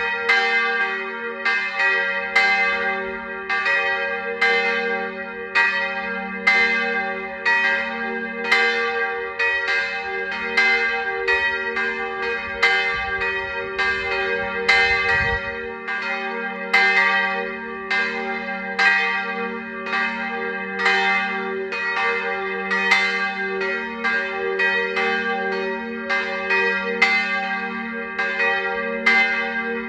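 Two swinging church bells in an open belfry ringing steadily, their strikes coming about one to two a second and overlapping over a lasting low hum. This is the ringing that calls people to a church service.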